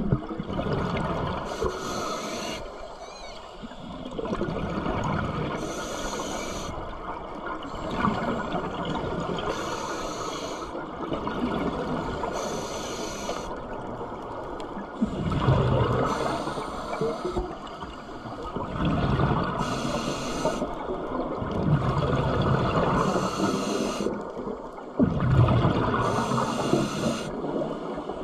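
Scuba regulator breathing underwater: a hissing inhale through the regulator about every three to four seconds, each followed by the low gurgle of exhaled bubbles.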